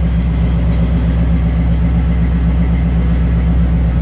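Buick 455 big-block V8 with Holley EFI idling steadily just after a cold start, still warming up.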